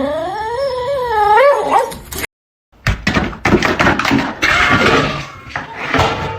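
A pet's long wavering cry, sliding up and down in pitch for about two seconds. After a brief break it gives way to a jumble of short noises and clicks.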